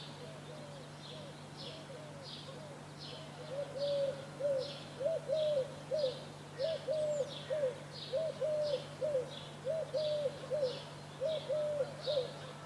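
Birds calling at dawn. One repeats short low notes in quick runs of two or three, louder from about three and a half seconds in, while another gives short high chirps about twice a second. A low steady hum runs underneath.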